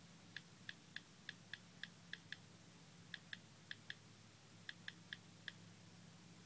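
Faint keypress clicks from typing on the LG Revolution smartphone's on-screen touchscreen keyboard, in three quick runs of about eight, four and four clicks.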